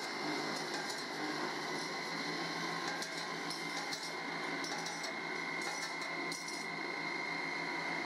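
Conveyor-fed multi-head abrasive grinding machine running, its wheels grinding steel door-latch blanks: a steady hiss with a high whine and a low hum, and light clicks here and there in the middle.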